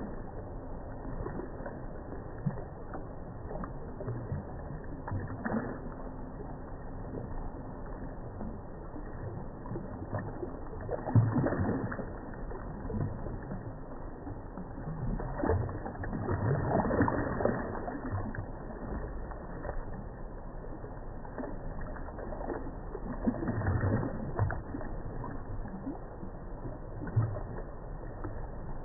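Muffled, low rumbling noise of a radio-controlled model ship under way on the water, apparently slowed down, with a few louder swells.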